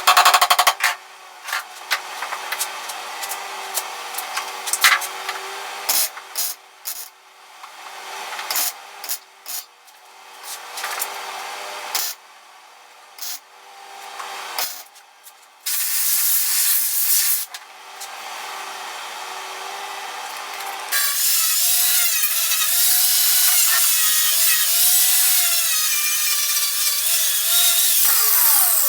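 Power-tool work on sheet-metal bodywork: a long run of short, irregular bursts with gaps between them, then, about two-thirds of the way through, the tool runs continuously for several seconds with a wavering pitch and spins down at the end.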